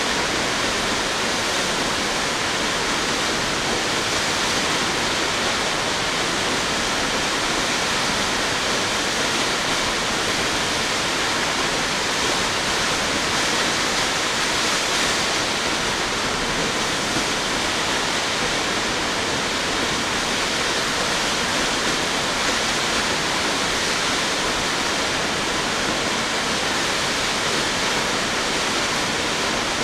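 Tall waterfall, about 177 feet high, pouring steadily: an even, unbroken rush of falling water.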